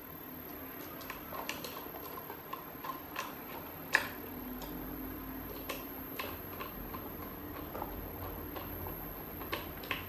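Irregular light clicks and ticks of screws being tightened into the plastic motor cover of a Mondial 40 cm fan, with one sharper click about four seconds in.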